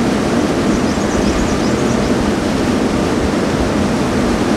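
Steady rush of water from a mountain stream and waterfall in a rocky gorge, with a few faint high chirps about a second in.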